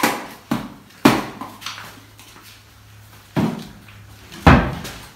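Kitchen handling knocks: a plastic food container and its lid handled, then a wall cupboard worked. Five sharp knocks and clatters, the loudest a deep thud near the end.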